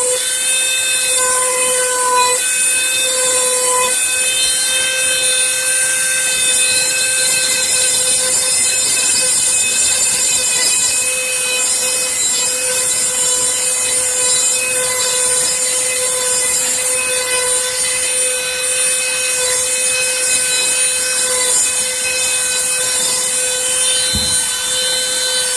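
Rotary tool with an engraving cutting bit carving hard birch wood: a steady high-speed motor whine with a rasping cutting noise.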